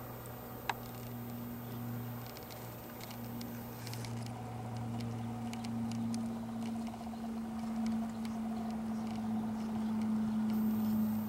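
Faint, irregular hoofbeats of a horse on sandy dressage-arena footing, heard from about four seconds in over a steady low hum. A single sharp click comes just under a second in.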